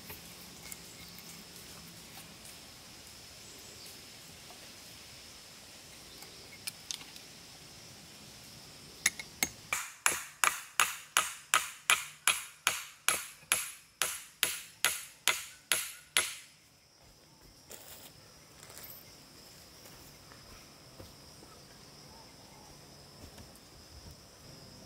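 Small hatchet striking wood in a quick, even series of blows, about three a second, each with a short ringing note. The blows start about nine seconds in and stop abruptly some seven seconds later.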